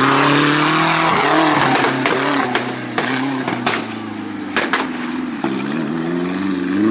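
Off-road racing buggy's engine revving, its pitch dropping and rising again several times as the throttle is worked. A few sharp cracks come through the middle.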